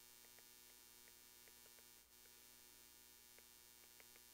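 Near silence: a faint steady hum, with soft, scattered ticks of a stylus writing on a tablet screen.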